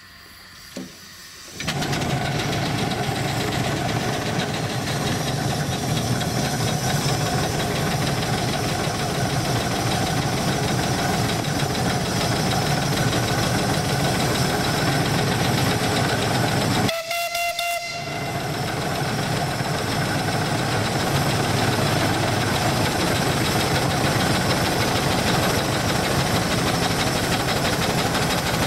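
Steam donkey engine starts up about two seconds in and runs steadily, hauling logs in on its cable. About 17 seconds in its running stops for a moment under a short steam whistle blast, then it builds back up and runs on.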